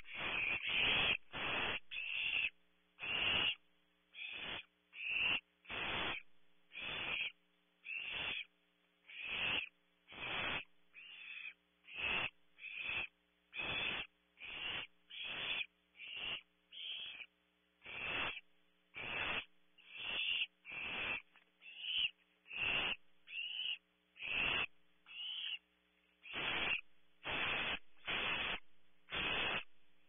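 Barn owl nestlings giving their rasping, hissing food-begging calls ("snoring"), a short hiss repeated about once a second over and over.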